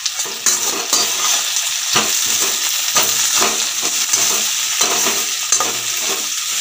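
Bitter gourd slices sizzling as they fry in sesame oil, stirred with a perforated spatula that scrapes and taps against the pan about twice a second.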